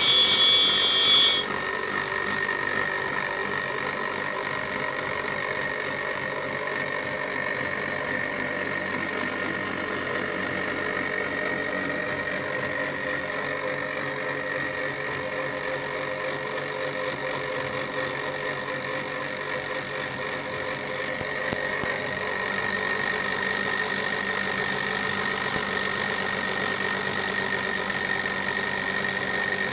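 Universal motor converted to a pulse motor, running on its electronic driver board: a steady high whine over a lower hum. A louder high-pitched sound in the first second and a half, and the running grows slightly louder about two-thirds of the way through.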